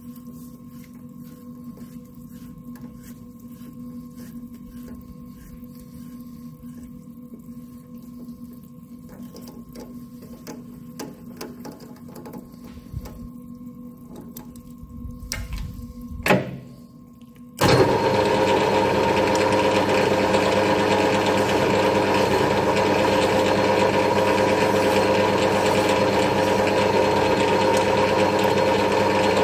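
Small metallic clicks of a threading die holder being handled on a threaded screw blank in a stopped lathe chuck, over a faint steady hum. A little over halfway through there is a sharp knock, then the metal lathe starts suddenly and runs steadily with a loud mechanical whir.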